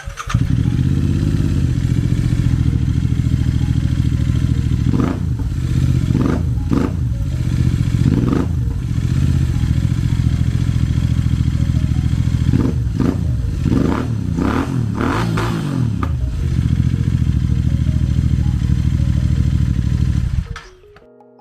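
Royal Enfield GT 650's parallel-twin engine idling, with the throttle blipped repeatedly so the revs rise and fall: a few single blips in the first half, then a quicker run of blips a little past the middle. The engine cuts off shortly before the end.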